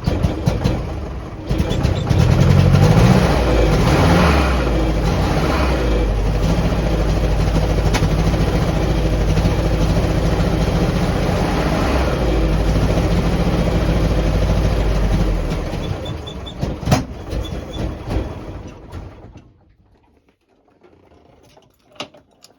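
1949 Willys Jeep CJ-3A's four-cylinder flathead engine revving up, then running steadily for about ten seconds before winding down and stopping, with a sharp click as it dies. The engine is one the owner finds hard-starting and rough-running despite new coil, points, rotor and cap.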